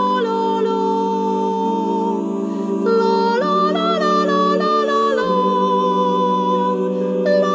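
Mixed a cappella vocal ensemble singing a slow, wordless piece: held chords in the lower voices under a higher melody sung on a vowel, moving from note to note.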